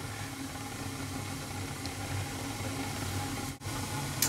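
Natural-gas furnace's atmospheric burners firing with a steady rushing hiss and a low hum, the blower disconnected so the heat exchanger heats up to trip the high-limit switch. The sound breaks off for an instant about three and a half seconds in.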